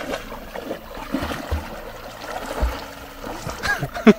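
Water splashing and sloshing as a German Shepherd swims on a leash and a person wades through a river, with a few low thumps, and a short voice near the end.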